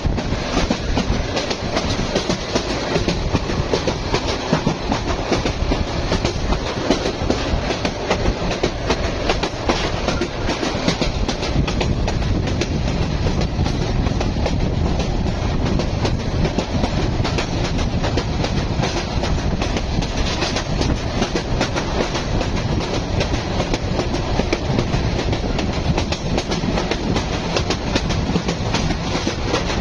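A passenger train running along the track: steady, loud noise of wheels on rails with fine clicking throughout.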